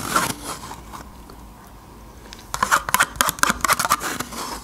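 Metal spoon scraping and clicking against the inside of a small plastic yogurt cup in quick runs of clicks, with a lull in the middle.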